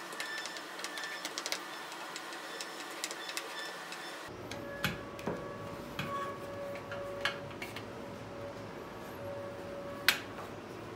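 Quick small ticks and clicks of a hand screwdriver turning the small screws on an exhaust tip trim, followed by scattered knocks of the plastic diffuser and metal trim being handled and turned over, with one sharp loud clack about ten seconds in.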